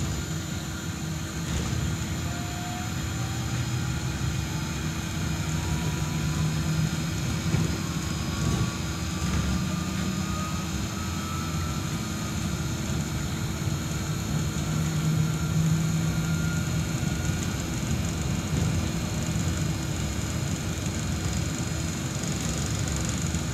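Solaris Trolino 12 trolleybus in motion, heard from inside the passenger cabin: a low rumble and a steady hum, with the electric traction motor's thin whine climbing slowly in pitch as the bus gathers speed, fading about three quarters of the way through.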